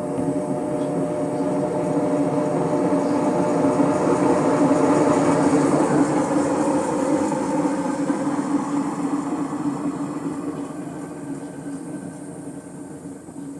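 Electrolux LTC 10 washing machine on its spin cycle, a loud steady mechanical hum that builds over the first few seconds and then slowly dies away. The noise during the spin is diagnosed as a faulty gearbox.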